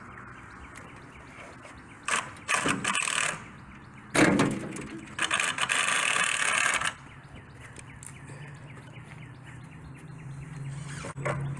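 Steel wheelbarrow being handled and set down after emptying wet concrete, making a few sudden knocks and rattles, then a scraping rush. A low steady hum comes in about eight seconds in.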